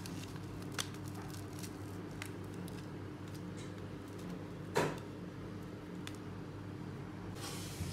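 Quiet room with a steady low hum, a few light clicks and one sharper knock about five seconds in, and a short rustle near the end: handling of plastic snack packets on a table.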